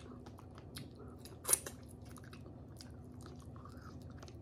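Chewing of tender, pressure-cooked pork hock meat held to the mouth by hand, with many small wet mouth clicks and one louder click about a second and a half in.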